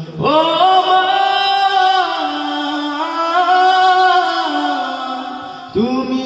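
A single voice singing a Bangla gojol, a devotional song, with no words in this passage, only long held notes that bend slowly. A new phrase begins near the end.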